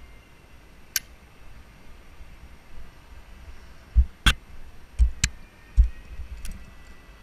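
A few sharp clicks, the loudest about four seconds in, mixed with three dull low thumps over a faint steady background.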